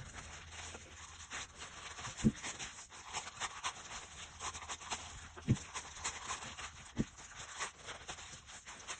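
Gloved hand kneading and squeezing sticky dough in a glass bowl: quick wet squelching and plastic-glove crinkling, with three dull thumps of the dough or bowl, about two, five and a half and seven seconds in.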